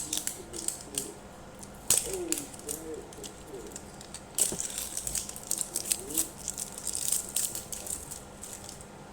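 Plastic wrapping on a toy surprise ball being handled and peeled off, crinkling with scattered sharp clicks and rattles.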